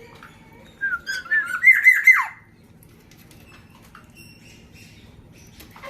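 Black-naped oriole (kepodang) giving a loud burst of quick whistled notes about a second in, the notes climbing and ending in a sharp falling slur. Faint chirps follow.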